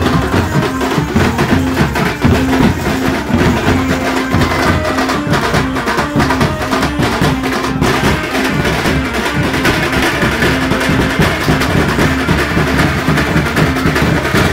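Street band beating large double-headed drums in a fast, dense, unbroken rhythm, with a pitched instrument playing a tune over the drumming.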